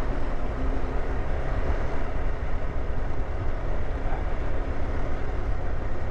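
KTM 390 Adventure's single-cylinder engine running steadily while the motorcycle rides a dirt track, with a steady rushing noise over it.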